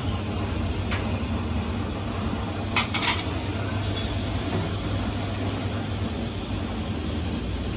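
Steady rumbling ambience of a busy street-food kitchen, with a low hum under it, and a quick clatter of metal utensils about three seconds in.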